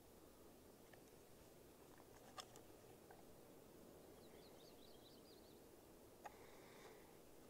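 Near silence: faint outdoor background hiss, with a few faint clicks and a brief run of faint high chirps about halfway through.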